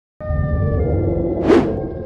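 After a moment of silence, background music with long held notes starts, and a single whoosh sound effect cuts through it about one and a half seconds in.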